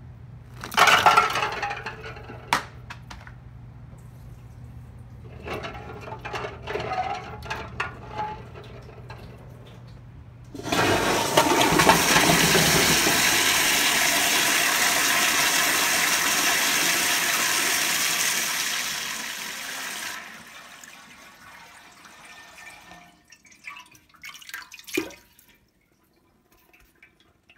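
Golf balls tipped from a bowl splash and knock into the water of a stainless steel prison toilet. About eleven seconds in, the toilet flushes with a loud rush that lasts about ten seconds and carries the balls away, then fades into gurgles and small splashes as the bowl refills.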